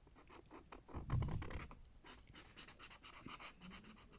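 Fine-tip colouring marker scratching on paper in many quick short strokes, with a soft low bump about a second in.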